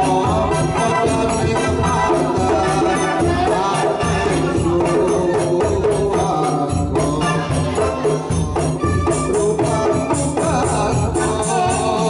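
Javanese Ndolalak folk music: singing over a steady, dense beat of drums and jingling percussion.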